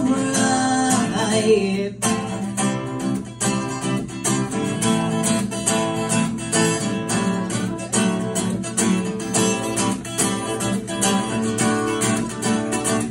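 Acoustic guitar strummed in a steady rhythm during an instrumental break in a live song. A man's voice holds the last sung word, "alright", for about the first two seconds, then the guitar plays on alone.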